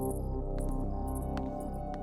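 Ambient background music: a sustained drone of steady tones with shifting low notes, high shimmering accents and a few soft clicks.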